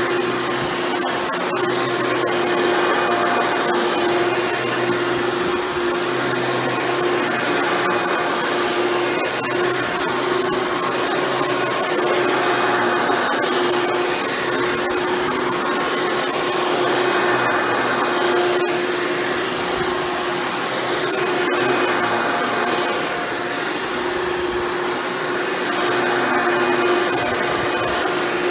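Hoover Elite upright vacuum cleaner running on carpet, its motor freshly fitted with new bearings, with a steady hum at one pitch over the rush of air. It swells and eases slightly as it is pushed back and forth.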